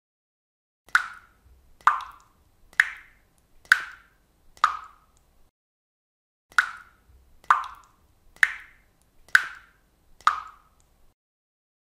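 Water drops dripping from a leak into water, each a short plop. They fall about one a second in two runs of five, with a pause of about two seconds between the runs.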